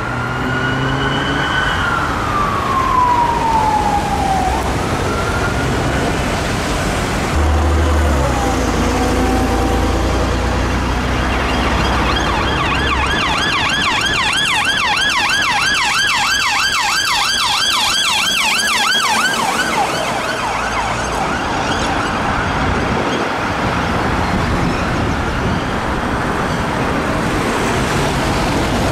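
Police sirens in city traffic: a wail falling slowly in pitch over the first few seconds, then a rapid yelp from about twelve to twenty seconds in, with traffic noise underneath throughout.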